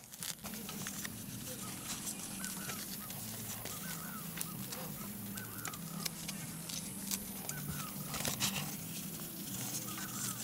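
Short, repeated bird chirps over a low, steady drone, with scattered clicks.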